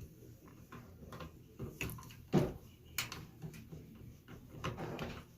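A screwdriver driving a screw back into a microwave's door latch mechanism, over a bent paper clip: faint scattered clicks and scrapes of metal, the clearest about two and a half and three seconds in.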